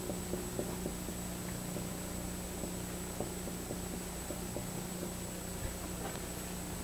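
Quiet lecture-room tone: a steady low hum and a thin steady high tone, with faint scattered ticks from a marker writing on a whiteboard.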